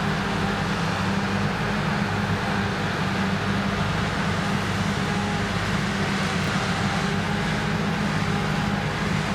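Krone Big X 1100 forage harvester's V12 diesel running steadily under heavy load while harvesting triticale, with a constant hum and the even rush of the crop being taken in and chopped.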